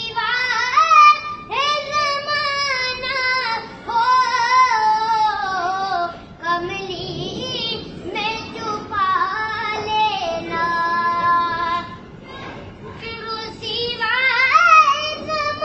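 A naat sung by a single high voice, in long, ornamented phrases of a few seconds with wavering held notes and short breaths between them.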